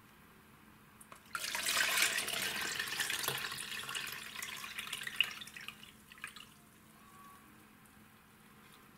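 Water kefir poured from a glass jug through a small metal mesh strainer into a plastic jug: a splashing pour that starts about a second in and trails off after about five seconds, with a few light clicks.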